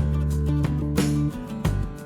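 Background music: guitar with a steady beat.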